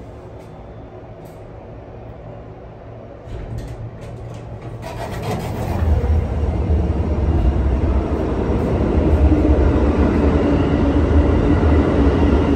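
New York City subway train arriving at the platform: a low rumble builds up from about three seconds in and stays loud, with a few clicks as it starts.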